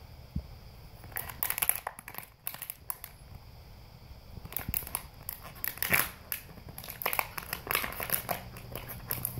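Golden retriever chewing a crumpled plastic water bottle: irregular bursts of crinkling and crunching plastic, with a short lull about three to four seconds in.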